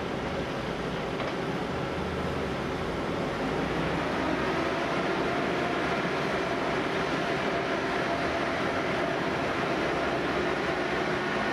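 Fire engine's engine and pump running steadily, feeding the water jet from an aerial ladder, with a few faint steady tones in the rumble. It grows a little louder about three and a half seconds in, then holds.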